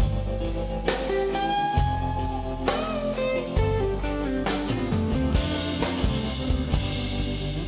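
Live blues-rock band playing an instrumental passage: a Les Paul-style electric guitar plays lead lines with bent notes over bass and drums.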